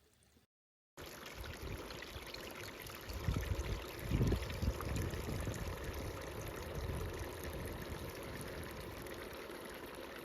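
Steady rush of flowing river water, starting after a brief dropout about a second in, with louder low rumbles around three to five seconds in.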